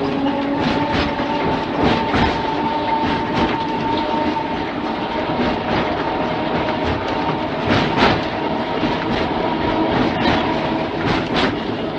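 Mumbles Railway train running along the line, its wheels clicking over the rail joints in an uneven clatter over a steady rumble and a steady humming tone.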